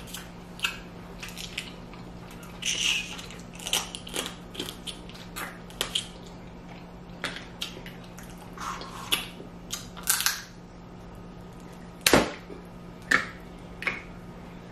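Snow crab leg shells cracking and snapping by hand, with close-up eating sounds, a string of irregular clicks and crunches, the loudest cracks about twelve and thirteen seconds in. A faint steady hum runs underneath.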